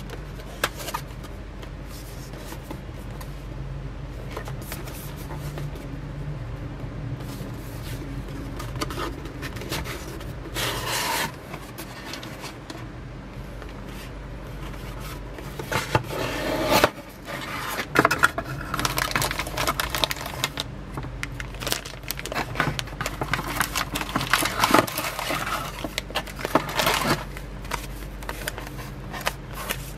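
Cardboard gaming-mouse packaging handled by hand: irregular scraping and sliding with light knocks, a loud scrape about halfway through, then paper leaflets rustling and crinkling through most of the second half.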